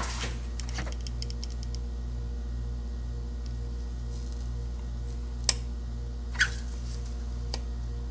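Light clicks and taps of a heated Torx bit, metal against the supercharger's aluminium bleed port and the snapped plastic bleed screw, as it is worked into the broken screw. There are two sharper clicks about five and a half and six and a half seconds in, the second with a short squeak, over a steady low hum.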